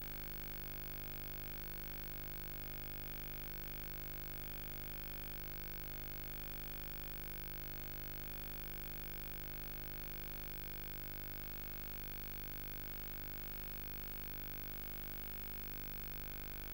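Steady electrical hum with a faint hiss and no programme sound: the empty audio track of a Betamax videotape transfer.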